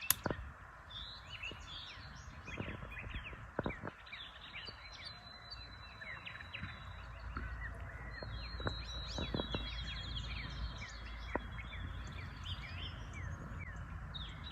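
Woodland songbirds chirping and trilling over a steady hiss, with a few sharp knocks, the loudest right at the start.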